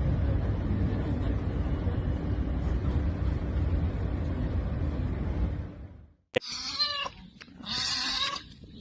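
Steady low rumbling noise, then, after an abrupt cut, an animal calling twice in drawn-out pitched cries.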